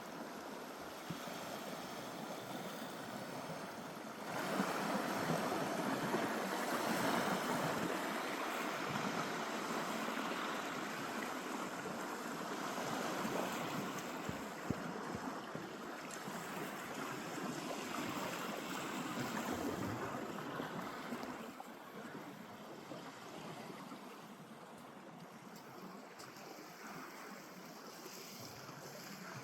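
Baltic Sea surf washing onto a sandy beach: a steady rushing that swells about four seconds in and eases off after about twenty seconds.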